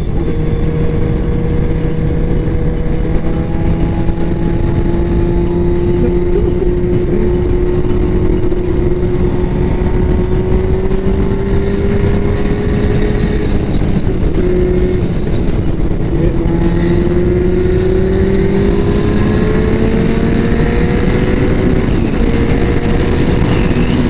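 Yamaha R1's 1000cc inline-four engine running under way, its note climbing slowly, dipping about two-thirds of the way through, then climbing again, with heavy wind noise on the rider's microphone.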